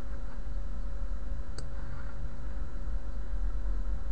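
A single computer-mouse click about one and a half seconds in, over a steady low hum with a faint steady whine.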